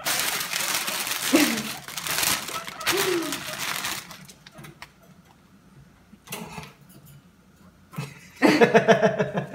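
Plastic bag of salad greens being crinkled for about four seconds, the rustle used to call guinea pigs to food. A voice comes in briefly near the end.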